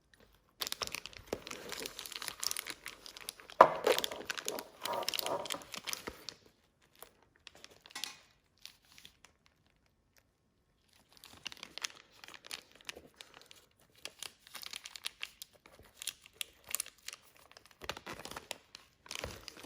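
Wrapping crinkling as it is handled. Dense crackling runs through the first six seconds, loudest just under four seconds in. After a short pause there is more intermittent crinkling from about eleven seconds on.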